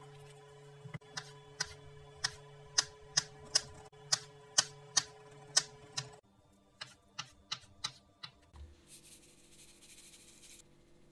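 Knife chopping vegetables for a salad on a cutting board: sharp, even strokes about two to three a second, in two runs, followed by a short hiss near the end.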